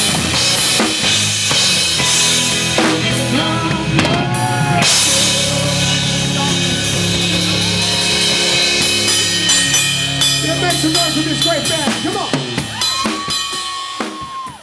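Live rock band playing with a drum kit and electric guitars, and a singer's voice over them. The music fades out near the end.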